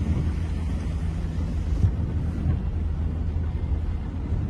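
Steady low rumble of a car driving, with a hiss above it that thins out about two seconds in.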